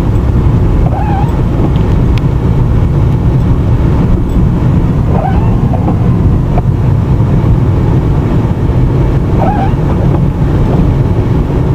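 Car driving on snowy roads, heard from inside the cabin: a steady low rumble of engine and tyres at a slow, even speed.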